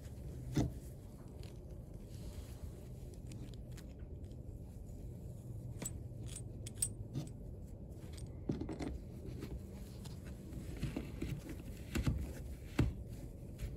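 Metal strain-relief cord grip fitting and its locknut clinking and scraping as they are handled and pushed into a plastic tool housing: scattered light metallic clicks, with a louder knock about half a second in and two more near the end.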